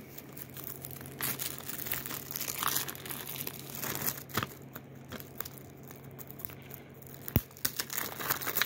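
Plastic shrink-wrap on a DVD case being picked at and torn off by hand: irregular crinkling and crackling, with a few sharper clicks near the end.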